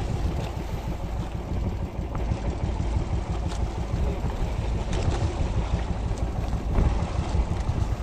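Wind buffeting the microphone at sea, a steady rough rumble, with waves in the background.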